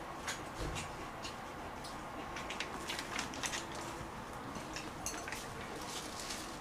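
Irregular small clicks and taps of chopsticks and tableware over a steady low hiss, at a meal of grilled pork belly.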